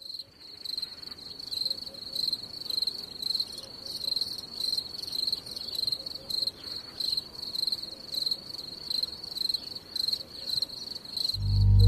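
Crickets chirping: a high, even chirp repeating about twice a second. Loud music comes in just before the end.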